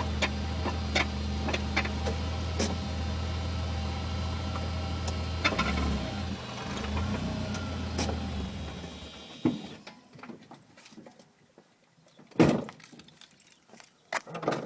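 A 2000 BMW 318Ci's engine idling with irregular sharp rattling clicks over its steady hum. This is the rattle the car is being recorded for. The engine shuts off about two-thirds of the way through, followed by a few scattered clicks and one sharp knock.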